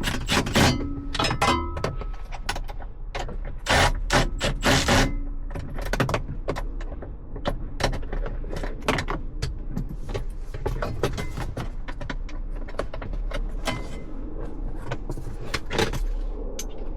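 Clinks, clicks and rattles of hand tools and small metal parts being handled. They come thick and fast for the first five seconds or so, then turn into scattered single clicks.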